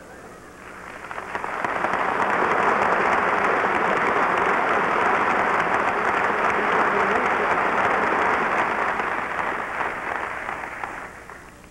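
Lecture-hall audience applauding. The applause swells about a second in, holds steady, and dies away near the end.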